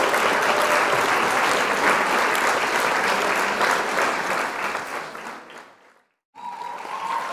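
Applause that fades out about six seconds in, breaks off into a moment of silence, then starts up again.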